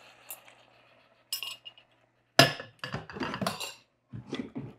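Glass mixing bowl clinking and knocking against the metal of the pressure cooker, several sharp clinks in a cluster from about halfway in, the first one the loudest. At the start the sizzle of the searing beef in the Instant Pot's inner pot dies away under the poured sauce.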